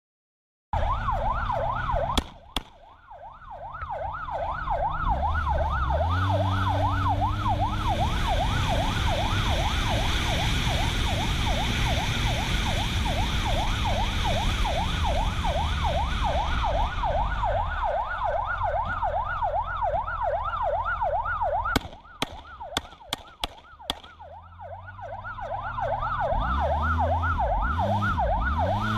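Police car siren on a fast yelp, about three sweeps a second, over a car engine pulling hard as it accelerates. Near the start and again about 22 seconds in, there are sharp clicks and the engine drops off, then builds up again.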